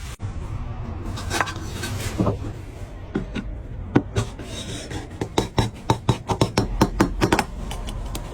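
Wooden joint pieces being fitted together by hand: rubbing and sliding with scattered sharp wooden taps, quickening to a run of several taps a second about five seconds in.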